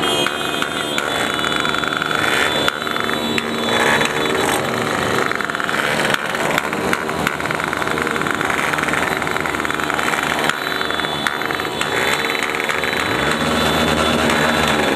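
A group of small street motorcycles idling and revving together in a continuous engine racket, their pitch rising and falling with each throttle blip.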